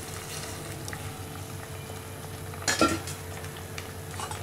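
A steel pot of dal-and-greens kuzhambu bubbling on the stove, with a single loud metal clink against the pot about three seconds in.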